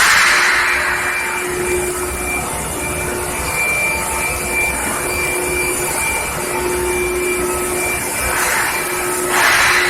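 Industrial machinery on a pipe heat-treatment line running steadily: a constant mechanical noise with faint steady whining tones, and a louder surge of hiss at the start and again near the end.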